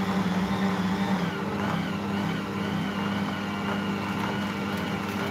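Ankarsrum Assistent stand mixer running at low speed, turning a bowl of toffee cookie dough (flour, butter, sugar and syrup). A steady motor hum with a thin high whine that wavers up and down evenly.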